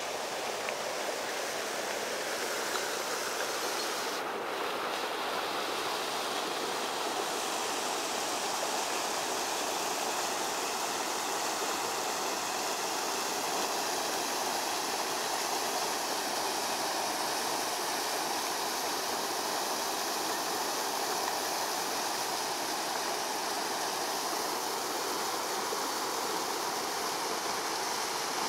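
River water rushing over rock ledges in a small cascade: a steady, even rush.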